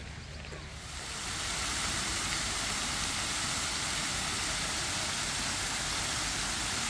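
Fountain water of the Grand Cascade rushing and splashing: a steady rush that grows louder about a second in and then holds evenly.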